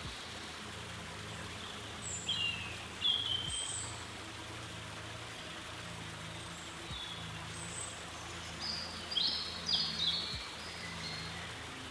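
Small songbird calling in short, high chirps that slide downward, in two brief clusters about two seconds in and again near the end, over a steady low background hum.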